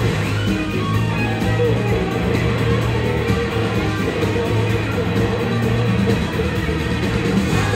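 Live band playing a rock-soul number, with electric guitar to the fore over bass and drums and no vocals, heard from the audience in a theatre.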